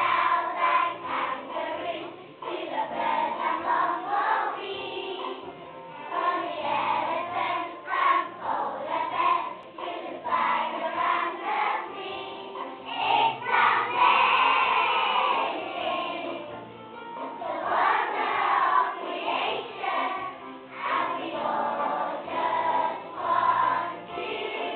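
A choir of young schoolchildren singing together, the voices rising and falling in loudness with the phrases of the song.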